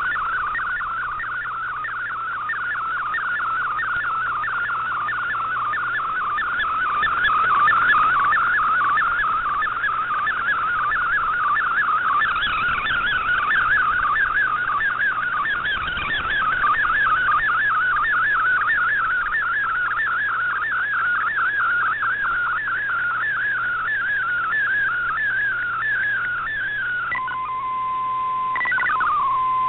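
Digital picture transmission from a shortwave broadcast in MFSK mode, heard as a rapid, continuous warbling of tones over faint radio hiss as the image is sent line by line. Near the end the warble stops and gives way to steady beeping tones with a short gliding sweep.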